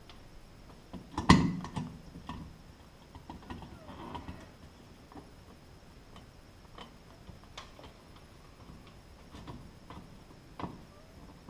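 Glass mushroom light globe being fitted to its metal ceiling base while its retaining screws are finger-tightened: scattered light clicks and scrapes of glass and metal, with one louder knock about a second in.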